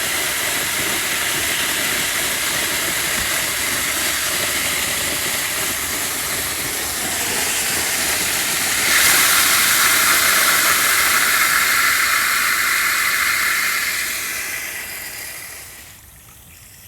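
Pressurised water rushing and hissing out of an opened water line at a blowoff. It swells louder about nine seconds in, then dies away near the end.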